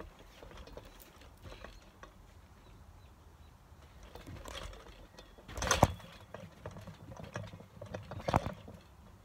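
Hands and feet landing on a trampoline mat during a front limber: light rustling and soft knocks, then two sharp thumps about two and a half seconds apart in the second half.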